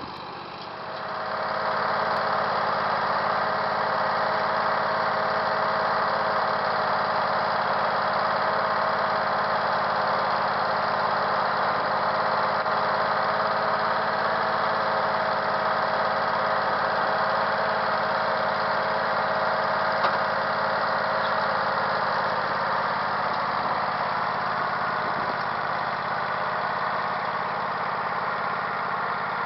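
Craftsman garden tractor's engine idling steadily, with one steady note running through it; it comes up about a second in.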